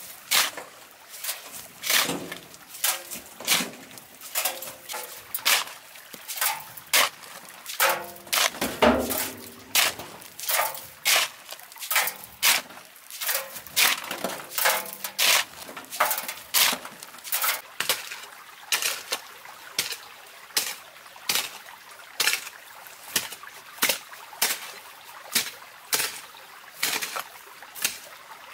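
A hoe striking and scraping through loose, stony soil in a steady run of strokes, about three every two seconds, with gravel rattling as it is dragged.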